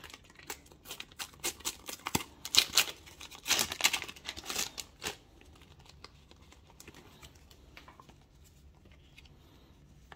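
Panini World Cup sticker packets being torn open and crinkled, with stickers rustling. The tearing and crinkling is loudest from about two to five seconds in, then dies down to a few faint rustles.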